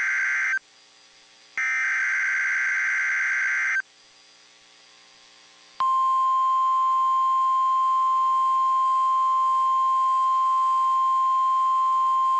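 An EAS SAME header plays first: screeching digital data bursts, the last ending about 4 s in. About 6 s in, the steady single-pitch 1050 Hz NOAA Weather Radio warning alarm tone starts and holds to the end.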